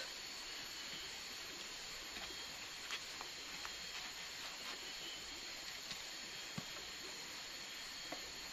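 Quiet forest ambience with a faint steady high whine, broken by a few faint clicks and taps of sticks being handled at a smoking campfire.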